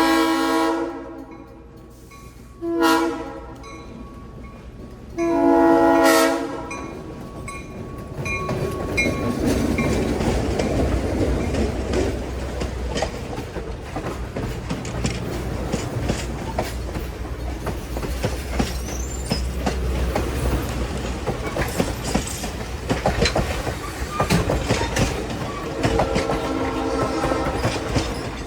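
Locomotive air horn sounding three blasts, a short one between two longer ones, then the train running past with a heavy rumble and wheels clicking over the rail joints.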